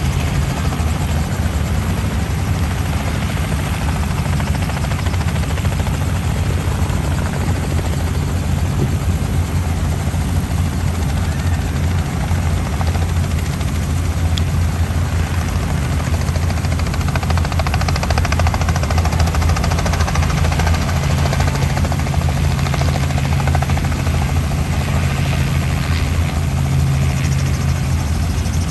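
Robinson R44 helicopter running on the ground: a steady low drone with no let-up.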